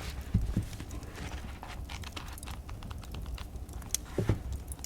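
A book being handled and its paper pages turned: small clicks and rustles, with a soft thump about half a second in and another near the end.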